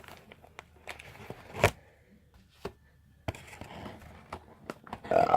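1981 Donruss baseball card packs and cards being handled: scattered sharp taps and clicks with light rustling of paper and card, the loudest tap about a second and a half in. Near the end comes a short, louder vocal noise, answered by "excuse me".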